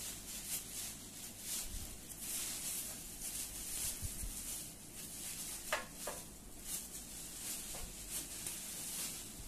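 Clear plastic wrapping around a bicycle frame rustling and crinkling in irregular bursts as the wrapped frame is lifted and handled, with a few soft knocks.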